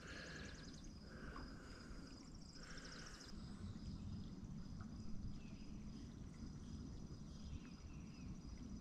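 Quiet outdoor ambience: a steady, high, pulsing insect-like trill with short chirping calls over a low rumble. The chirps come mostly in the first three seconds.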